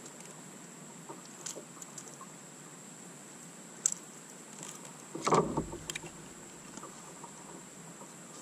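Handling noise as a crankbait's hooks are worked out of a smallmouth bass's mouth: scattered small clicks and rattles, with one louder thump and rustle about five seconds in.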